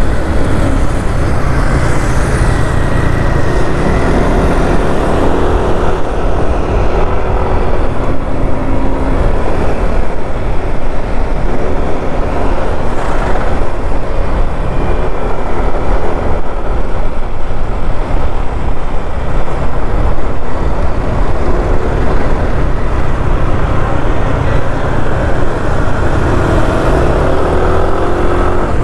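Riding noise from a Yamaha NMAX 155 scooter moving through city traffic at about 30 to 40 km/h: a loud, unsteady rush of wind over the microphone, with the scooter's single-cylinder engine and passing vehicles underneath.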